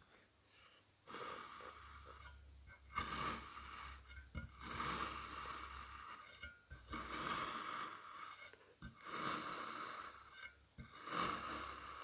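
Kinetic sand being cut and scooped: a series of gritty scraping strokes, each lasting a second or two, with short gaps between them.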